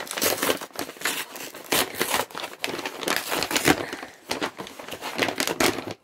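Kraft paper mailing bag crinkling and rustling as it is pulled open and handled, with irregular crackles.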